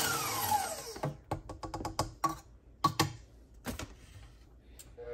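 KitchenAid Professional stand mixer whipping egg whites, its motor whine falling away as it is switched off in the first second. A few scattered clicks and taps follow, and the mixer starts up again at a lower pitch just at the end.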